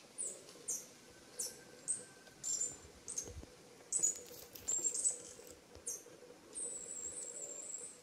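High, thin chirps of a small bird: about ten short calls at uneven intervals, then a quick run of chirps near the end.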